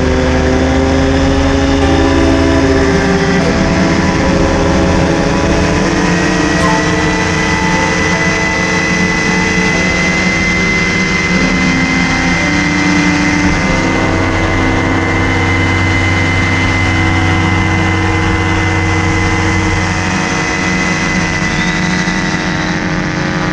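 Paratrike's engine and propeller running steadily in flight, a continuous drone over rushing air, with its pitch shifting slightly now and then.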